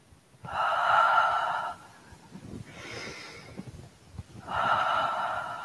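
A woman breathing out the qigong healing sound "he" as a long, soft, breathy sigh, twice, with a quieter in-breath between. It is the heart-cooling sound of White Crane Soft Qigong.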